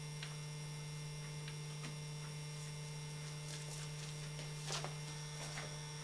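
Steady electrical mains hum, with a few faint clicks over it, the clearest a little before the end.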